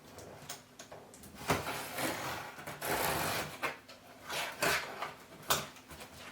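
A cardboard box being opened by hand: irregular scraping and rustling of cardboard, with a few sharp knocks.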